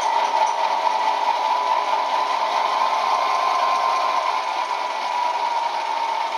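Tsunami sound decoder in an HO-scale GE C44-9W model playing the sound of a GE diesel prime mover running steadily through the model's two small speakers. It sounds thin, with no bass.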